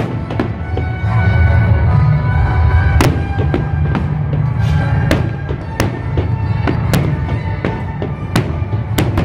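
Fireworks bursting in the sky, a sharp bang every second or so, over loud music with a heavy bass.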